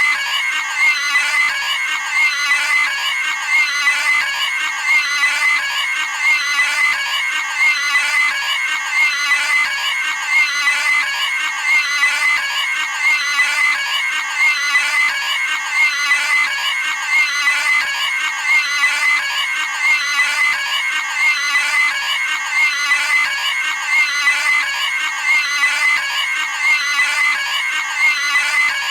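Cartoon pig scream sound effect: the same short, high-pitched squealing scream looped over and over, a new scream about every second and a half.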